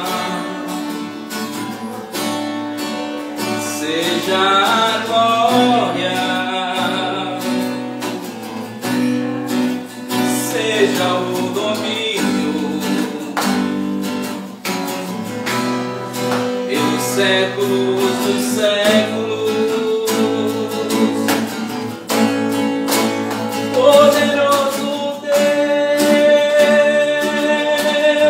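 Acoustic guitar strummed steadily while a man sings a worship song, his voice coming in and out between guitar-only stretches.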